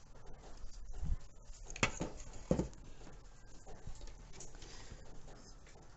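A few light taps and knocks from handling a spice jar and spoon over a metal pot of raw chicken, with faint rustling between them.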